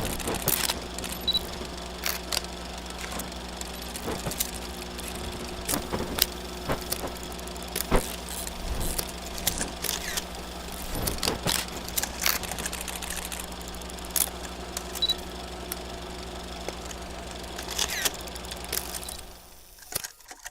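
Vintage 8mm film sound effect: a steady low hum with irregular crackles and pops scattered through it, fading out near the end.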